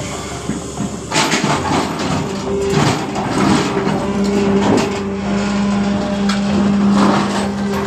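Sany SY350C9 long-boom excavator working: the machine runs with a steady hum that strengthens about halfway through, under repeated clanking and scraping from about a second in.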